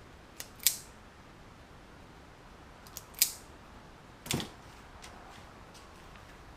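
A hand cutting tool snipping through electrical wiring twice, two sharp snips about two and a half seconds apart, each with a faint click just before it, then a duller knock about four seconds in.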